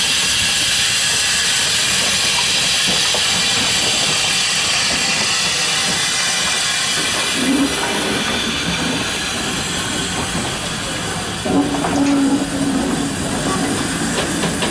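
Saddle tank steam locomotive pulling away with its train, with a loud steady hiss of steam through the first half. The coaches then roll past, their wheels clicking and clattering over the rails.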